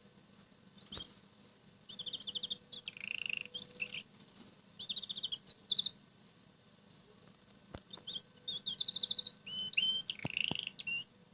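Red canary singing softly, three short bursts of quick trills and warbles with pauses between them. A few faint taps are heard between the phrases.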